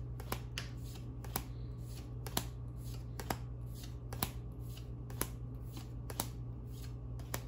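Trading cards from a booster pack being flipped through one at a time by hand, with a crisp card snap about once a second over a low steady hum.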